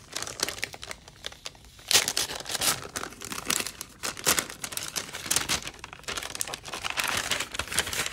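Paper treat bag and its thin inner wrapping rustling and crinkling as they are unsealed and opened by hand: sparse crackles at first, then dense, continuous crinkling from about two seconds in.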